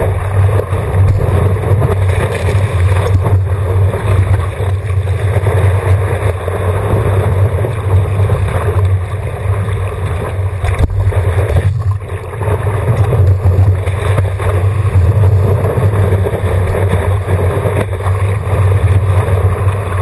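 Water rushing and splashing along a stand-up paddleboard as it rides a small breaking wave, with steady low wind rumble on the microphone.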